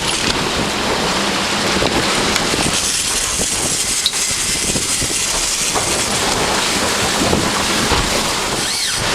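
Steady wind buffeting the microphone, with sea water rushing past the hull of a catamaran under way.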